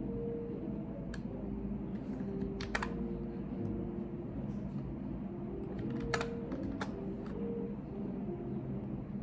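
A few scattered computer keyboard keystrokes in short clusters, over a steady low room hum.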